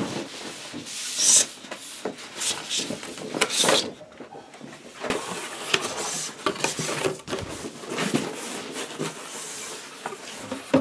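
A large cardboard box being handled: cardboard rubbing and scraping in irregular bursts as the box is moved, set down and its top flap pulled open.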